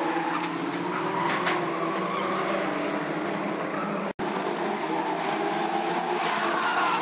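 Several stock car engines running hard as the cars race round the oval, their engine notes overlapping. The sound cuts out for an instant about four seconds in.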